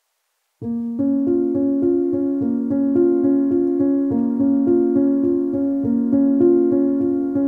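Background music starts suddenly about half a second in, after silence: a steady run of struck notes in an even rhythm.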